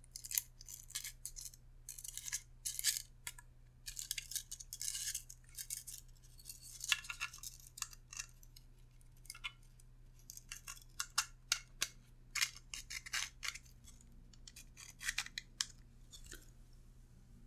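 Hands working small plastic parts together as a scroll-wheel assembly is fitted into a 3D-printed mouse casing: irregular short scrapes, clicks and rustles with brief pauses, over a steady low hum.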